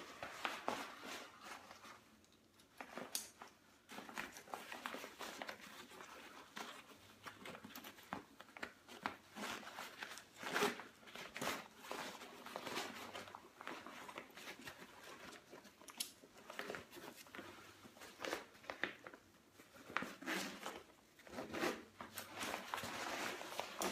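Nylon fabric of an Ozark Trail 45-litre backpack rustling and crinkling in irregular bursts as it is handled, with its straps shifting and a few sharp clicks.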